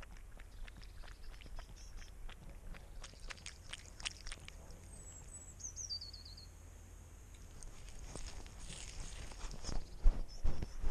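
A cat lapping puddle water, heard from a chin-mounted camera as quick regular wet clicks, about three a second, for the first few seconds. Midway a bird gives a short falling call, and near the end the cat's steps on the gravel road come through as heavy thumps, the loudest sounds.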